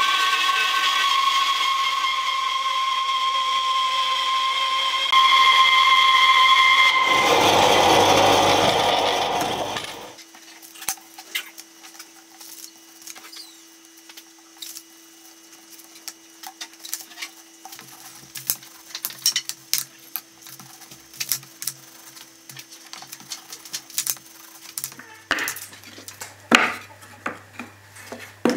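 Band saw running with a steady whine, then cutting through a wooden board, louder and rougher for a few seconds before it stops about ten seconds in. After that come scattered light clicks and knocks of thin wooden strips being handled and stacked on a workbench.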